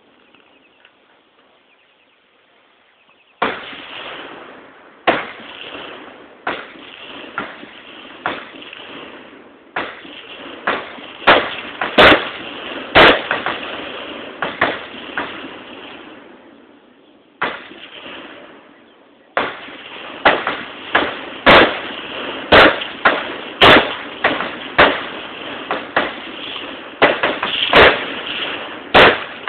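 Machine-gun fire: sharp shots and short bursts at irregular intervals, starting a few seconds in, with a brief lull a little past the middle.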